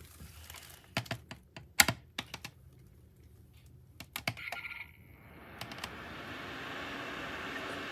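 A series of light clicks and taps, then a small 1000 W electric space heater's fan blowing a steady, quiet hiss that comes up about five seconds in.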